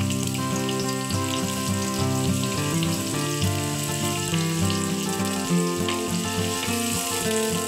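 Sliced onions sizzling and crackling in hot oil in a non-stick frying pan, under instrumental background music with held, slowly changing notes.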